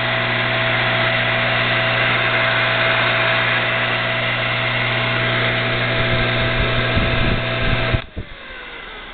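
Dumore Series 12 tool post grinder's 115-volt motor running free with no load, a steady hum and whine. About eight seconds in it is switched off and the whine falls away as the motor winds down.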